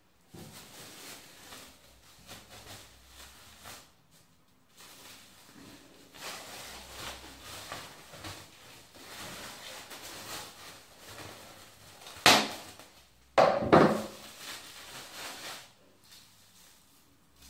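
Clear plastic cling film crinkling and rustling as it is pulled and wrapped around the head, with a sharp loud crack about twelve seconds in and a heavier knock a second later.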